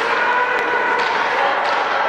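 Steady crowd noise in an ice hockey rink, with a few sharp knocks of stick and puck on the ice.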